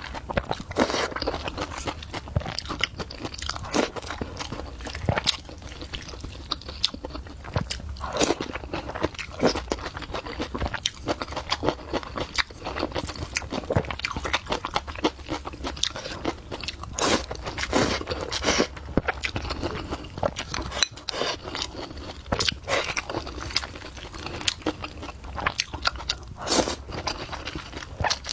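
A person chewing and biting food with crisp crunches, in irregular bites.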